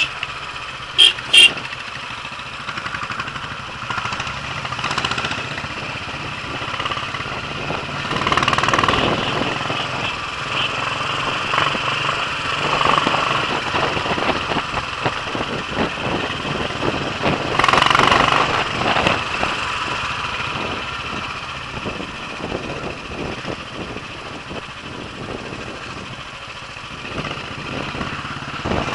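Royal Enfield single-cylinder motorcycle engine running at road speed, with wind rushing over the microphone; two short high beeps about a second in.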